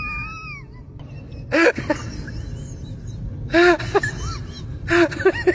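A person's high-pitched voice: a wavering drawn-out tone at the start, then short loud outbursts, each a few quick rising-and-falling notes.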